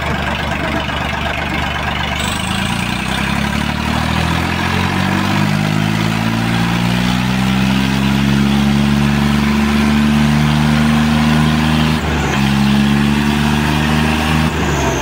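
Diesel tractor engines at a tractor tug-of-war, led by the modified Swaraj 855 in front. The engine revs up over several seconds, then holds at high revs, pulling hard, with a brief dip in revs about twelve seconds in.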